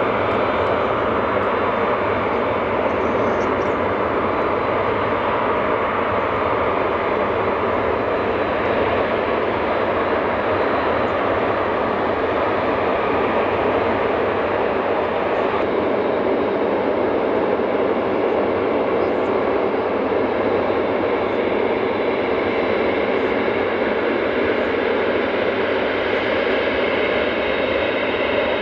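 A Boeing 747-8F freighter's four GEnx turbofan engines running at low taxi power as the jet taxis. A steady jet-engine noise with a thin, high, steady whine on top.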